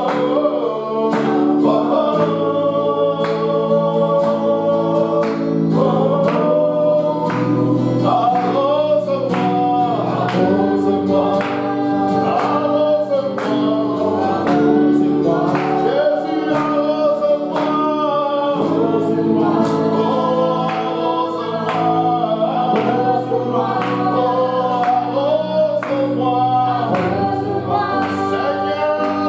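Gospel-style worship music: a group of voices singing held, wordless-sounding lines over band accompaniment with a steady beat.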